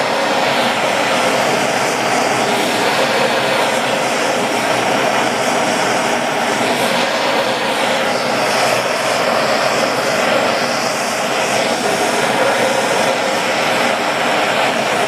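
Hand-held propane torch burning with a steady, unbroken rushing hiss as its flame heats an aluminium T joint to melt the brazing rod into it.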